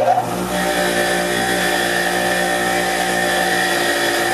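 Electric bench grinder running steadily at full speed, having just spun up, while its wire-brush wheel scrubs the last carbon off the nozzle tip of a small steel-mesh spark arrester screen held against it.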